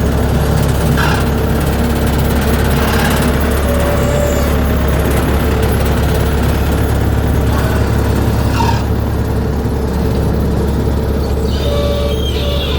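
Heavy construction machinery running steadily, a continuous low engine rumble with scattered short squeaks over it.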